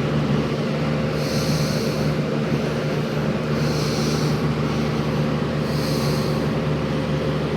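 Haier FBP020W box fan with a McMillan motor running on high: a steady motor hum under the rush of moving air. A soft higher hiss swells and fades three times over it.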